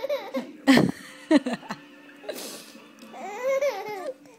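Baby laughing and babbling in short bursts, then a longer coo that rises and falls near the end.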